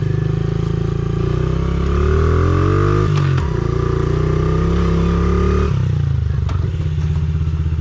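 Honda CRF50 dirt bike's small four-stroke single-cylinder engine under way: it revs up in rising pitch about a second and a half in, drops back suddenly near three seconds, holds steady, then eases off to a lower note near six seconds. Running a lot better with its clogged air filter and spark plug just cleaned.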